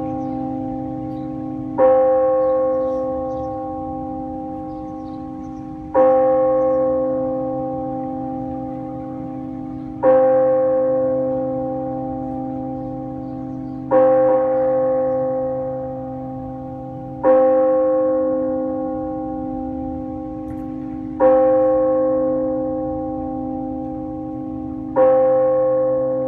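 A bell tolled slowly for the dead: seven strokes about every four seconds, each ringing on and fading before the next.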